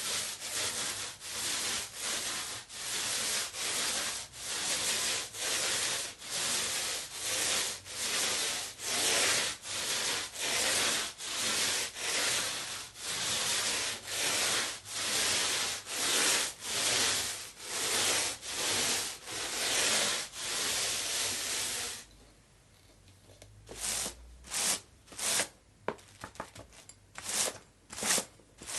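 Paint roller rolling back and forth over a surface: rough rubbing strokes in a steady rhythm, about one and a half a second. About two-thirds of the way through they stop briefly, then resume as shorter, quicker strokes.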